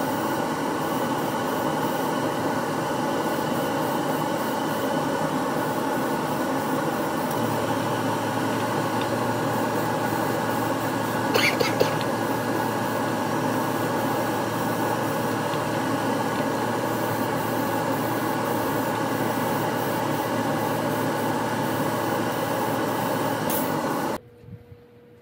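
Steady whir and hiss of a hobby spray booth's exhaust fan pulling air through a furnace filter, with airbrush air hiss; a low hum joins about a third of the way in and there is a brief rattle near the middle. The noise cuts off abruptly about a second before the end.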